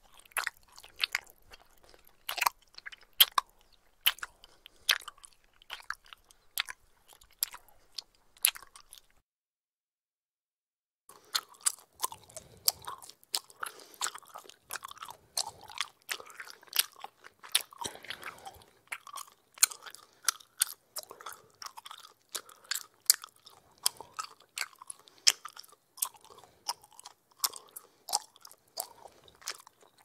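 Bubble gum chewed close to the microphone: irregular sticky mouth smacks and clicks. They stop for about two seconds a third of the way in, then resume more densely.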